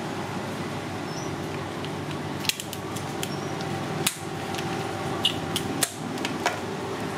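Scissors snipping and cracking through cooked crab shell, a series of short sharp clicks from about two and a half seconds in, over a steady hum.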